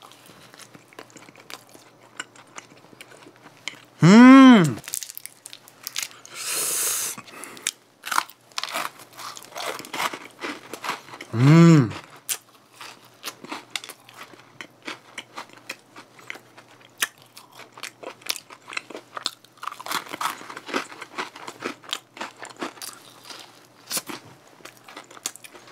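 Close-miked biting and chewing of a Lotus Biscoff doughnut, with many small crisp crunches. A few short hummed "mmm" sounds rise and fall in pitch between the chews.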